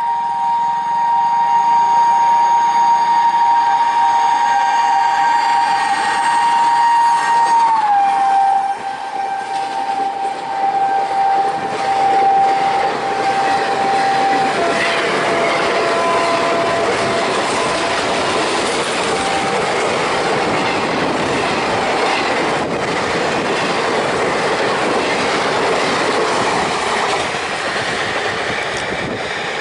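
A WAP-4 electric locomotive's two-note horn sounds long and continuously, dropping in pitch about eight seconds in as the locomotive passes, then stepping lower again and fading out midway. The express train's coaches then rush past at speed with a steady rumble and clatter of wheels on rail joints.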